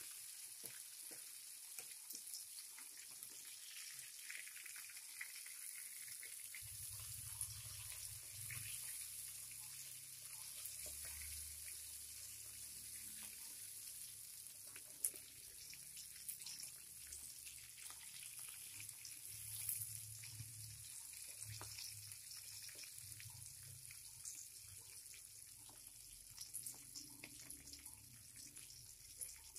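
Salted fish frying in hot oil in a wok: a steady, faint sizzling hiss with scattered pops and crackles.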